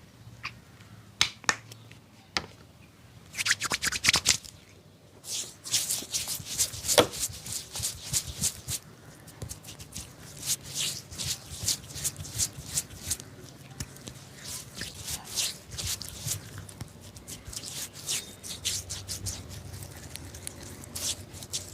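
Barber's scissors snipping hair: a few separate snips, then runs of rapid snipping from about five seconds in.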